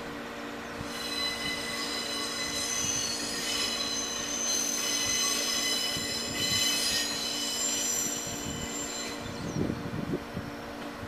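Tenryu Hamanako Railroad diesel railcar creeping out of the depot yard, its wheels squealing high on the curved yard track and points, over a steady low engine drone. The squeal fades out about nine seconds in, followed by a few low thumps.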